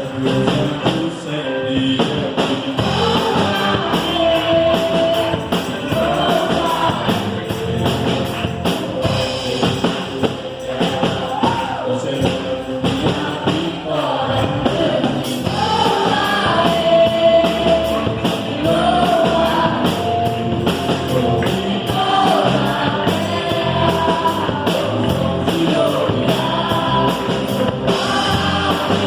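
Live worship band playing an upbeat gospel song, with voices singing the melody over a busy drum kit, steady cymbal strokes throughout.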